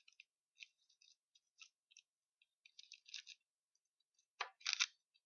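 Thin plastic cling film crinkling faintly as fingers press and handle it: short, scattered crackles, with a louder pair of rustles near the end.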